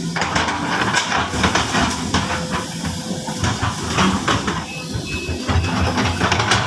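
Sumitomo SH200 hydraulic excavator working: its diesel engine runs steadily under a string of sharp metal clanks and knocks.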